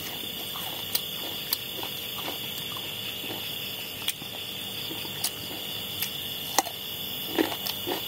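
Steady high chirring of night insects. Over it come scattered short clicks and a few soft smacks from eating with the fingers out of a bowl, more of them near the end.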